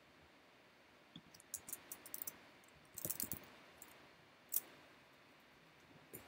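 Typing on a computer keyboard: an uneven run of light keystroke clicks starting about a second in, then a single sharper click a little past the middle.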